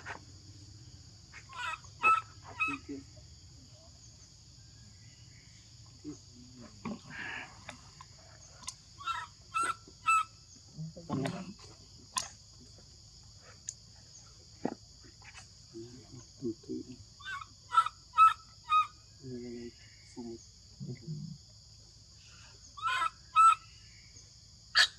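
Baby macaque crying: short, high-pitched calls in quick runs of three or four, repeated several times, with a few lower grunts between them. They are the distress cries of an infant whose mother has refused to nurse it.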